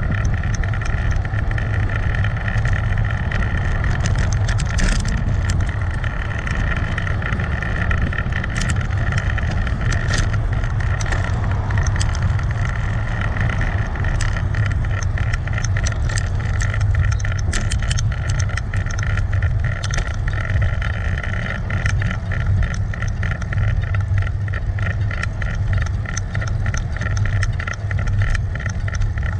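Steady wind rumble and road noise from a bicycle-mounted GoPro while riding, with a run of rapid clicks and rattles over the second half.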